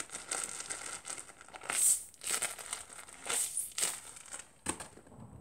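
Homemade paper squishy being squeezed again and again, crinkling with each squeeze, with a short sharp tap near the end.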